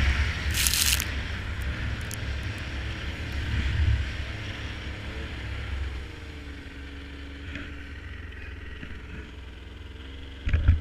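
Snowmobile engine running, loud for the first four seconds and then dropping to a steadier, quieter run. A short hiss comes about half a second in, and a sharp thump comes near the end.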